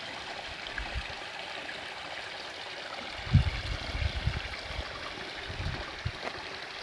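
Water of a small creek trickling steadily over stones, with a few low thumps in the middle.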